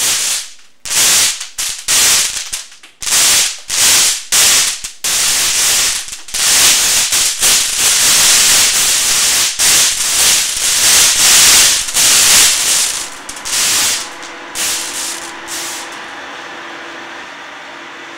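Loud bursts of hissing noise in quick, irregular succession, running together into an almost continuous hiss in the middle, then thinning out. Near the end the hiss gives way to a steady low hum with one held tone.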